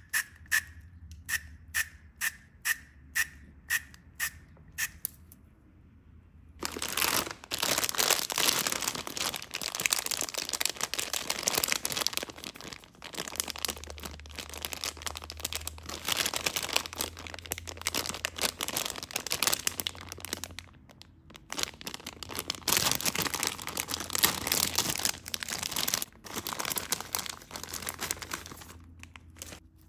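A small pump spray bottle of liquid candy sprayed over and over into its plastic cap, a short sharp spritz about twice a second for the first five seconds. Then, after a brief pause, the plastic bag of Haribo Chamallows marshmallows crinkling loudly as it is handled and torn open.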